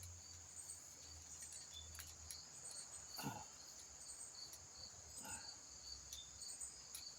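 Crickets chirping steadily, a continuous high-pitched trill with a faint pulsing rhythm. Twice there is a faint, brief low sound.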